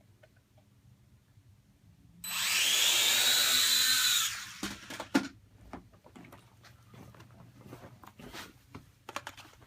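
WLtoys V686G quadcopter's motors spinning up with a loud high whine for about two seconds, then cutting off, followed by a few sharp knocks and clatter. The quadcopter will not hover and pulls to the front left, which the owner puts down to a bad left front motor.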